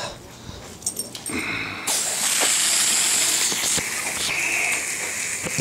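Garden hose pistol-grip spray nozzle spraying water against a dog and a wall, coming on about two seconds in as a steady hiss and spatter.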